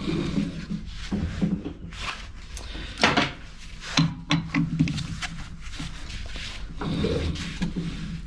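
Lathe chuck being turned by hand and its jaw screw worked with a chuck key: a run of metal clicks and clunks, the loudest about three and four seconds in. This is a part being dialled in true against a dial indicator, the high spot nudged out by adjusting the jaws.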